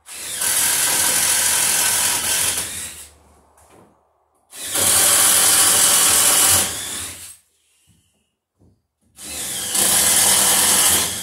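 Power drill boring into wooden framing, run in three bursts of about three seconds each with short pauses between, the motor whine tailing off at the end of each burst.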